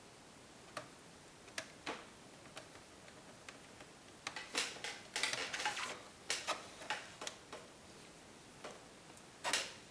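A small screwdriver driving the screws that hold a laptop's replacement LCD panel into its lid: scattered light clicks and scrapes, a busy run of rapid clicking in the middle and a sharper click near the end.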